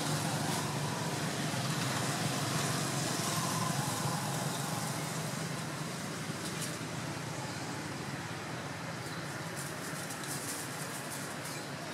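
Road traffic noise: the steady rush of a passing motor vehicle, slowly fading, with a few faint ticks near the end.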